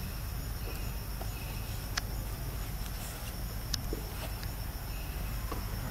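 Steady, high-pitched chorus of forest insects, crickets or cicadas, over a low rumble, with two sharp clicks about two seconds and nearly four seconds in.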